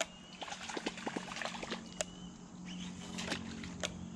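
Topwater lure being twitched across the water surface, a run of small clicks and splashes, over a steady low hum from the boat's electric trolling motor.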